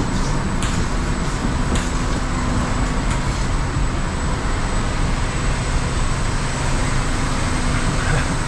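Steady drone of airport ramp machinery running near the aircraft's open cargo door, with a few light knocks in the first three seconds.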